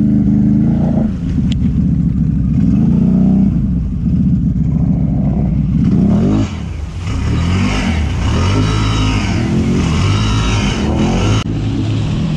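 Can-Am ATV's V-twin engine revving up and down as it churns through deep water. Water splashes and sprays around it, louder in the second half.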